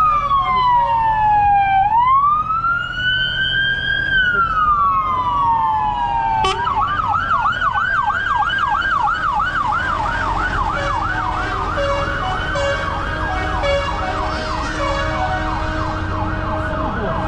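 A siren sounding a slow rising-and-falling wail, switching about six seconds in to a fast yelp, over a steady low engine rumble.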